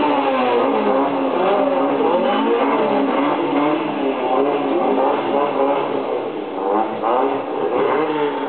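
Car engine revving over and over, its pitch rising and falling about once a second, heard played back through a screen's small speaker.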